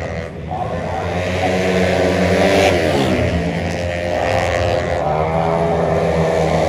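Racing automatic-scooter engines running hard at high revs. About two and a half seconds in, the engine pitch drops sharply, then climbs again as the throttle opens.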